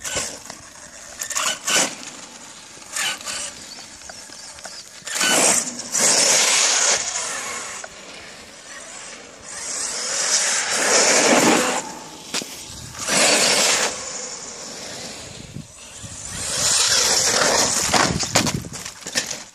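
HPI Savage XL Flux RC monster truck's brushless electric motor whining in several throttle bursts, with its tyres hissing on wet asphalt; the longest burst comes near the end.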